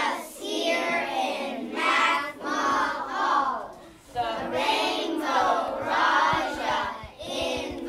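A group of young children singing together in unison, in phrases of a second or two, with a short break about four seconds in.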